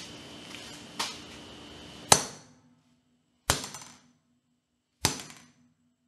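A hammer striking down on an iPhone four times, about one to one and a half seconds apart. Each blow is a sharp crack with a short ring, and the second is the loudest.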